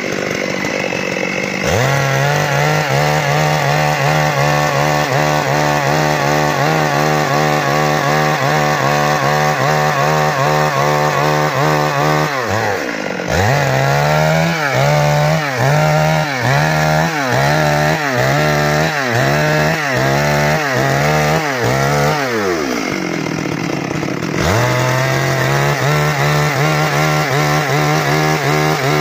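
STIHL chainsaw running at full throttle, ripping lengthwise through a log to saw out boards. Through the middle stretch the engine pitch rises and falls about once a second as the cut loads and unloads the saw, then it settles back to a steady note near the end.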